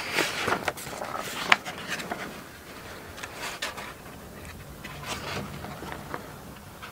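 Small parts being handled on a workbench: a cluster of clicks and rustles in the first two seconds, one sharp click about a second and a half in, then scattered fainter clicks and rustling.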